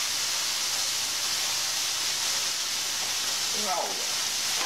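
Battered chicken of the woods mushrooms deep-frying in hot vegetable oil, a steady sizzle. The oil is running hot, so they are cooking fast.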